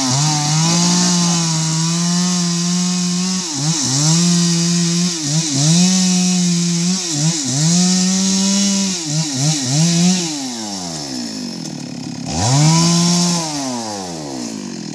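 Two-stroke chainsaw cutting through a log at high revs, its pitch sagging briefly again and again as the chain bites into the wood. About ten seconds in it winds down, revs up once more for about a second and a half, then drops back.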